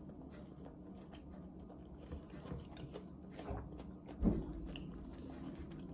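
A person chewing a bite of a sandwich with the mouth closed: soft, faint mouth clicks. There is a dull bump about four seconds in.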